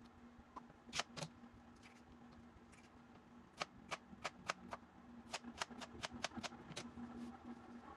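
Kitchen knife chopping an onion on a plastic cutting board: two knocks about a second in, then a run of quick chops, about three to four a second, from the middle to near the end.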